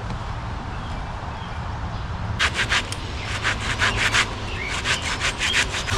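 Hand saw cutting a notch into a log: a steady rasp at first, then, from about halfway through, quick strokes at roughly four or five a second.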